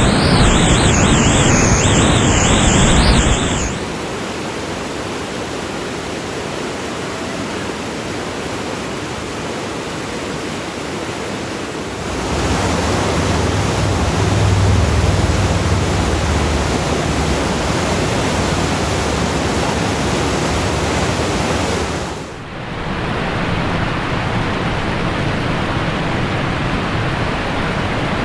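Steady rushing noise of whitewater, with some wind on the microphone, in several clips cut together. It is loudest and brightest for the first few seconds as the kayak runs through big rapids, then drops to a softer rush that changes level abruptly at each cut.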